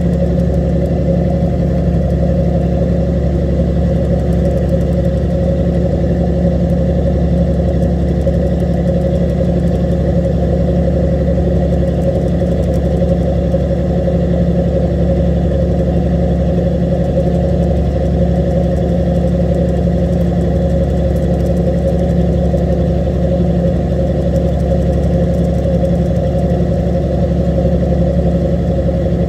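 Fishing boat's onboard engine running steadily: a loud, constant low drone that holds the same pitch throughout.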